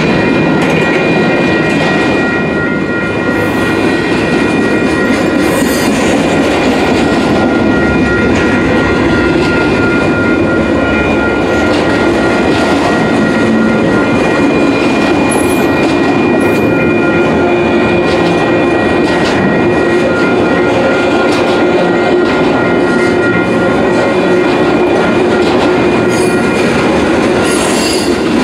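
Freight cars of a Union Pacific mixed freight train rolling past: a loud, steady rumble of steel wheels on rail with clicking from the rail joints. Over it runs a steady high-pitched tone that fades out near the end.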